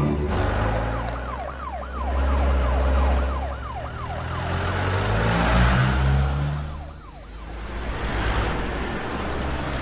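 Police siren yelping in fast rising-and-falling sweeps, about three a second, over the heavy low rumble of convoy vehicles driving past. The siren drops away after a few seconds and comes back briefly later on.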